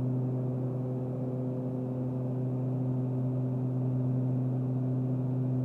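Beechcraft King Air 200's twin PT6A turboprop engines and propellers droning steadily, heard inside the cockpit: a low hum with a few steady higher tones over it.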